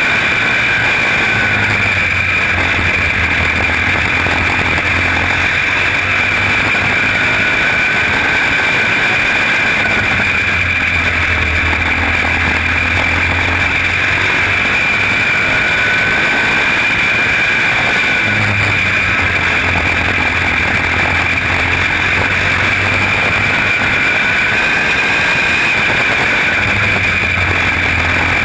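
Quarter midget race car's small engine running hard, heard from the driver's helmet camera. Its pitch dips and comes back up about every eight seconds as the car goes through the turns of each lap.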